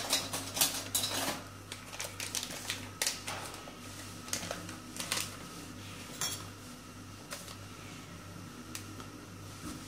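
Metal spoon clinking and tapping on metal kitchenware, a quick run of clicks and knocks over the first three seconds, then scattered taps and the crinkle of a foil packet as custard powder is tipped into a metal saucepan.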